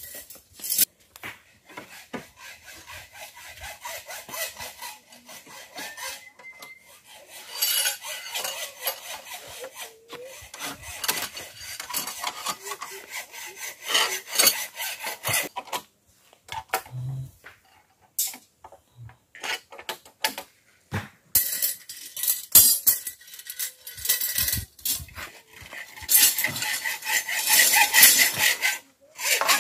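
Rhythmic rasping strokes of a hand tool working hard material, coming in bouts with short pauses and loudest near the end.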